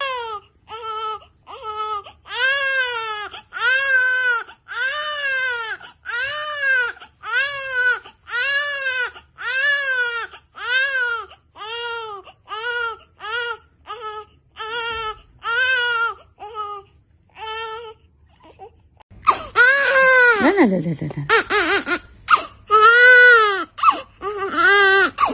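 Newborn baby crying in short, repeated wails, each rising then falling in pitch, several to a couple of seconds. After a brief pause near the 18-second mark, louder crying resumes, with one long cry that slides down low.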